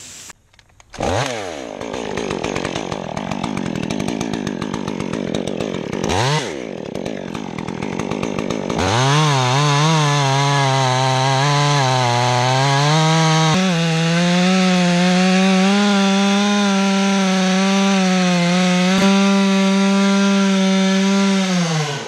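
Stihl MS 201T two-stroke top-handle chainsaw cutting through a large tree limb at full throttle. Its note dips and recovers twice under load, then from about nine seconds in settles into a steady drone that slowly rises in pitch and drops off near the end.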